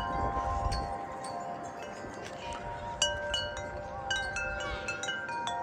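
Walmart wind chime ringing in the wind: scattered strikes whose tones ring on and overlap, with a small cluster of fresh strikes about three seconds in.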